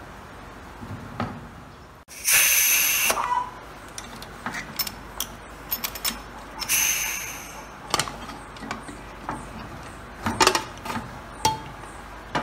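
Stovetop aluminium pressure cooker letting out its steam in two hisses of about a second each, the first the loudest, about two seconds in and again past the middle. Then a run of sharp metal clicks and knocks as the handle is unlocked and the lid is slid off.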